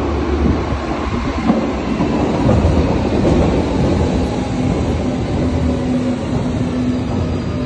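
Train running on rails: a loud, continuous wheel-and-track noise with a steady hum that grows stronger about halfway through.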